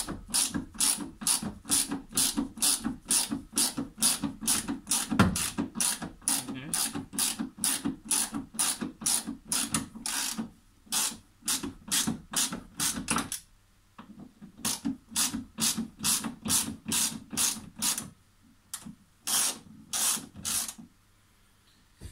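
Hand ratchet wrench clicking as it turns nuts, about three clicks a second, with a few short pauses between runs.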